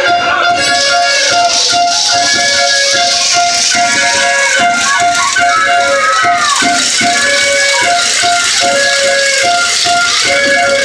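Loud music with a shaker rhythm and a short high note pulsing over and over on an even beat.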